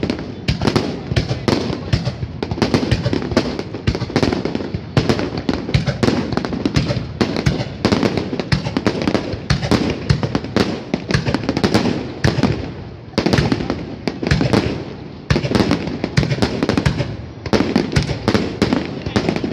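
Aerial fireworks display: a continuous barrage of shell bursts, several bangs a second, with a short lull about two-thirds of the way through.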